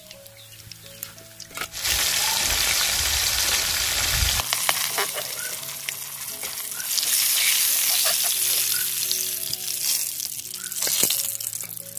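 Pieces of fish frying in hot vegetable oil in a kadai: a loud sizzle that starts suddenly about two seconds in and keeps going, with sharp clicks of utensil handling through it.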